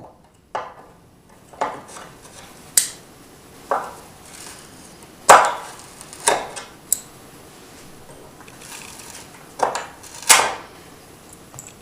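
Side cutters working finish nails out through the back of a wooden baseboard: a series of about nine sharp clicks and knocks at irregular intervals, the loudest about five seconds in.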